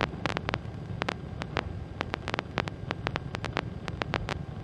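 Skyranger microlight's engine droning steadily at cruise, heard in the cockpit, with irregular sharp clicks several times a second over it.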